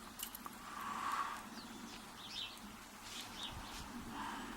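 Faint bird chirps in the background, with a few light clicks early on from lock-picking tools being set into a brass padlock's keyway.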